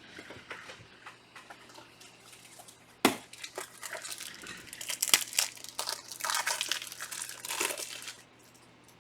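Trading-card pack wrappers being torn open and crinkled, with a sharp snap about three seconds in and a dense run of crackling until shortly after eight seconds.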